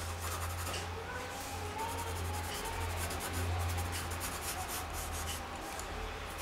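Graphite pencil scratching across drawing paper in a quick run of short sketching strokes.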